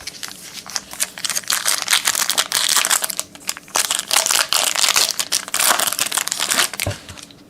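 Crinkling and rustling of a basketball trading-card pack wrapper as it is torn open and handled, a dense irregular crackle that stops shortly before the end.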